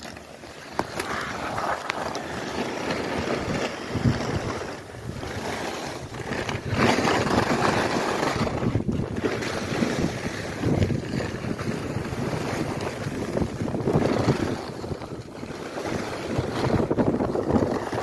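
Skis hissing and scraping over packed snow on a downhill run, with wind rushing over the microphone; the noise rises and falls with the turns.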